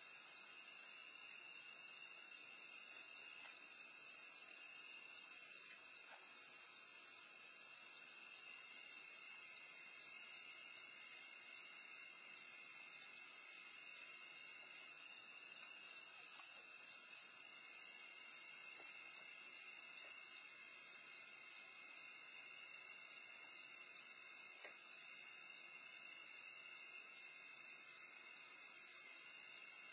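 Steady chorus of night insects: a continuous high-pitched shrill trilling that never breaks or changes.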